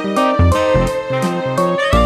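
Upbeat background music with a steady beat, a bass line and a keyboard-like melody.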